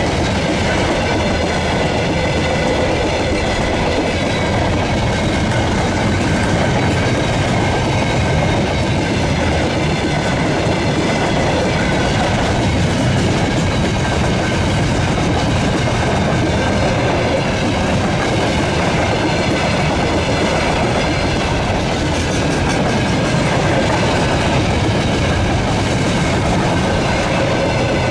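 Loaded freight train of covered hopper wagons rolling past close by, its steel wheels running steadily over the rails, with a faint steady high ringing above the noise.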